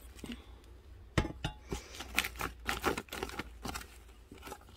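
Hand tool digging through worm farm bedding: irregular scrapes, clinks and rustles as it turns the compost, shredded paper and straw and knocks against the side of the bin, starting about a second in.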